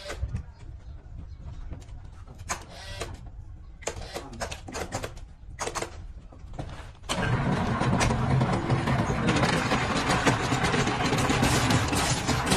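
Log-peeling machine: a low motor hum with scattered clanks, then about seven seconds in a sudden loud, steady grinding as the cutter bites into the turning log and strips it.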